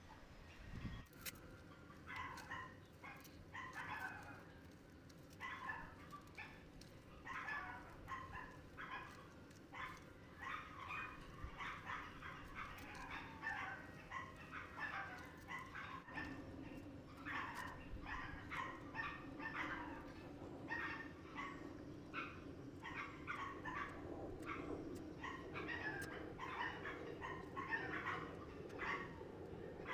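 Faint dog barking, over and over. A low steady hum comes in about halfway through.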